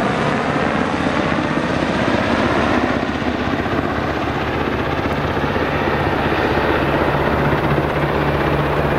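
Sikorsky Black Hawk helicopter flying overhead and away, its rotors beating fast and evenly over the engine hum.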